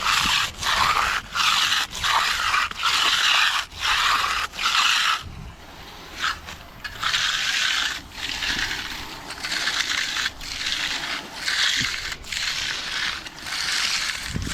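Steel trowel scraping across wet concrete in repeated strokes about a second apart, as a finishing pass is worked over the slab.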